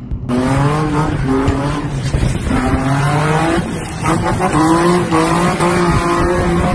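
Nissan 350Z drifting: its V6 engine revs up and down several times under hard throttle while the rear tyres squeal and skid. The sound cuts in abruptly just after the start.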